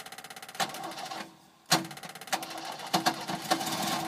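A 1951 Willys Jeep's engine, newly fired up after sitting, idling with fast, even ticking pulses. About a second and a half in, the sound briefly drops out, then comes back with a sharp click and a more irregular ticking over a steady low hum.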